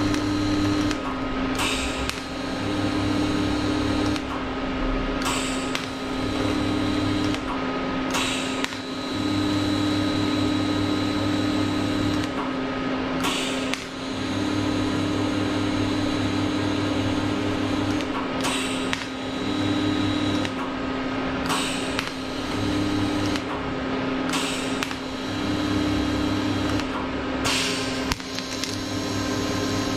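TIG welding arc on steel, buzzing in short runs of one to three seconds that stop and start about ten times as the filler plate is tacked and plug-welded to the frame, over the welder's steady hum.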